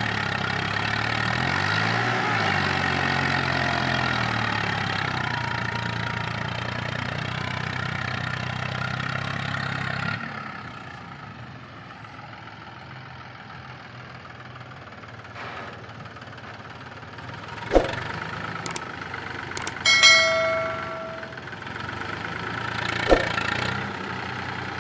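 Swaraj 855 FE tractor's three-cylinder diesel engine working under load, hauling a trolley of soil through deep mud, its pitch rising and falling in the first few seconds. About ten seconds in it drops to a quieter, steady engine sound, with two sharp knocks and a short bell-like chime near the end.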